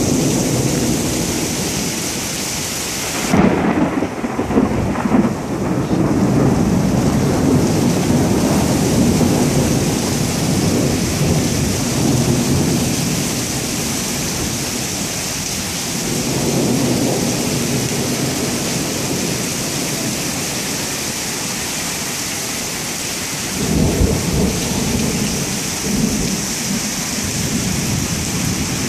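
Thunderstorm: heavy rain pouring steadily on pavement, with a sudden loud clap of thunder about three seconds in that rolls on for several seconds. Further rumbles of thunder follow about midway and again near the end.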